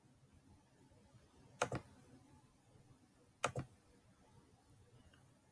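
Two computer mouse clicks about two seconds apart, each a quick double click of press and release.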